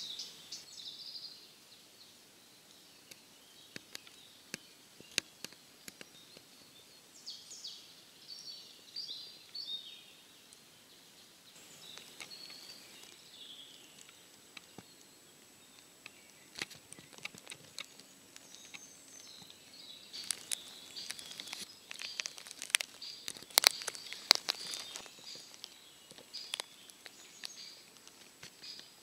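Caterpillar droppings (frass) falling from the canopy and ticking sharply and irregularly onto dry leaf litter, like scattered raindrops, busiest and loudest in the later part. Birds sing in short, high chirping phrases behind it.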